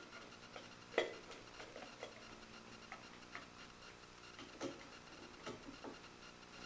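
Scattered light clicks and taps of parts and tools being handled, with a sharper knock about a second in and another about four and a half seconds in.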